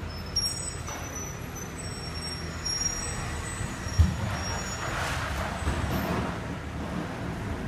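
Garbage truck running at a steady low rumble, with a sharp thump about four seconds in and a hiss of air just after.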